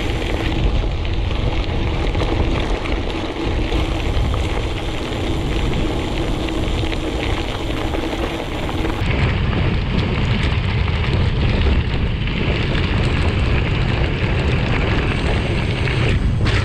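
Steady wind rumble on the microphone and tyre noise while riding a gravel bike; the higher hiss thins out about nine seconds in.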